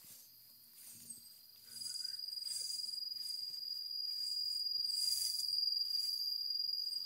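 An insect trilling in one continuous high-pitched tone that comes in loudly about two seconds in, over brief swishes of tall grass brushing against someone walking through it.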